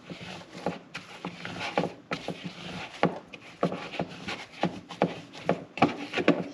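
Doughboy dough being mixed and kneaded by hand in a plastic bowl: soft, irregular thumps and rubbing, about two a second.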